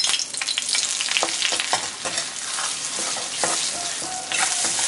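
Dried chili flakes sizzling and frying in hot canola oil in a steel wok, stirred with a metal ladle that scrapes and clicks against the pan now and then.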